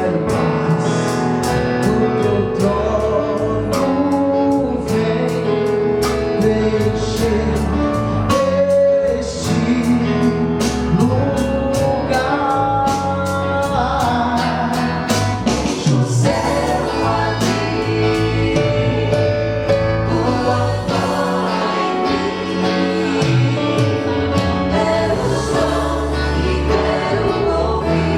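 A vocal group singing a gospel song together over an instrumental backing with a steady beat.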